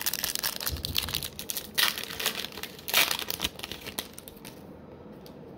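Foil wrapper of a trading-card pack being torn open and crinkled in the hands, with louder rips about two and three seconds in. It goes quiet shortly before the end.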